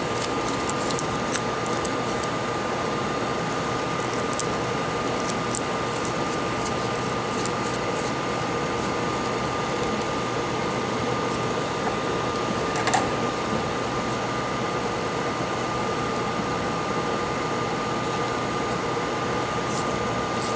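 Steady whir of a small electric motor, fan-like, with a constant high-pitched tone running through it. A few faint clicks sound over it, and one sharper click about 13 seconds in.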